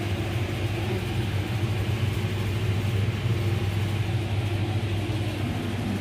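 Steady low mechanical hum with an even rushing noise behind it, unchanging throughout.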